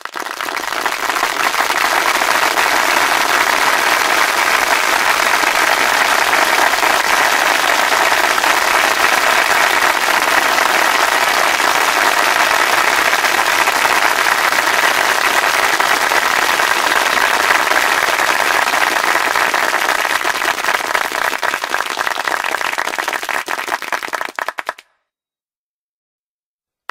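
Crowd applause: many hands clapping steadily, easing slightly before it cuts off abruptly near the end.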